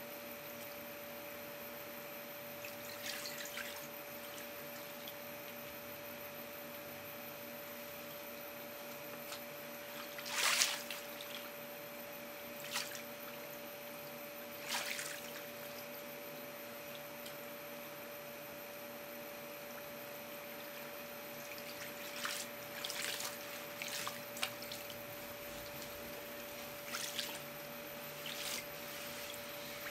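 Water splashing and trickling in short, scattered bursts a few seconds apart, the loudest about ten seconds in, over a steady hum.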